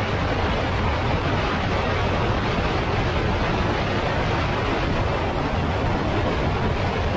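Honda Africa Twin twin-cylinder motorcycle cruising at a steady speed on a gravel road: a low engine hum under a constant rush of wind on the camera microphone.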